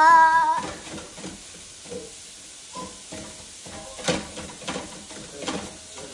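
Ground sausage sizzling in a skillet while a spatula scrapes and knocks against the pan as it is stirred, with a few separate strokes a second or so apart. Right at the start there is a short, loud, high-pitched vocal sound from a child.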